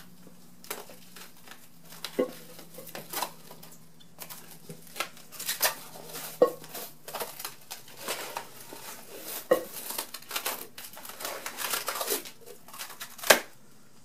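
Plastic cling wrap crinkling and crackling as it is pulled off the roll and wound around a foam pool noodle. The handling noise is sparse at first and grows busier after a few seconds, with one sharp crackle near the end.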